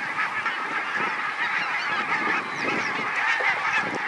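A large flock of migrating geese calling together as it takes off and flies over: a dense, steady chorus of many overlapping honks.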